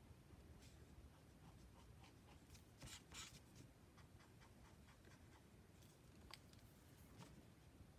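Faint scratching of a brush pen's tip stroking across smooth Bristol paper, with a slightly louder run of strokes about three seconds in and a soft click a little after six seconds; very quiet overall.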